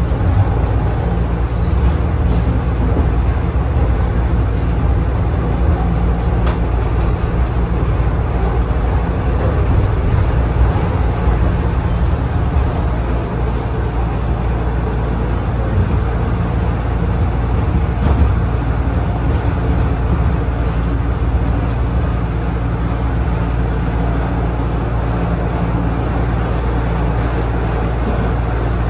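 Toronto Rocket subway train running through a tunnel, heard from inside the car: a steady, loud low rumble of wheels on rail and traction motors, with a hiss of track noise above it.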